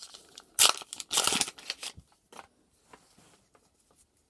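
A foil trading-card booster pack being torn open, a short rip then a longer one, followed by the cards being slid out and handled with soft rustles and ticks.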